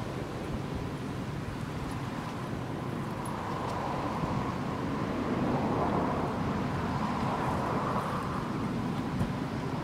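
Steady outdoor background noise: an even, low rush with no distinct calls or knocks.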